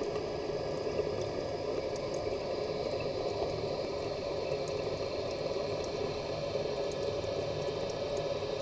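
Toilet tank refilling after a quick half flush: the fill valve hissing steadily as water runs into the tank.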